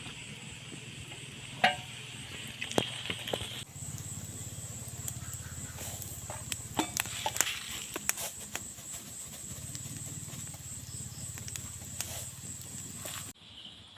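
Scattered sharp clicks and knocks over a steady low hum and hiss; the hum stops abruptly near the end.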